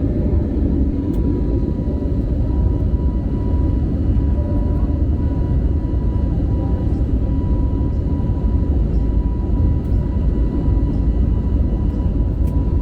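Cabin noise of an Airbus A320neo climbing after takeoff: a steady, loud engine and airflow rumble with a thin, steady high tone above it.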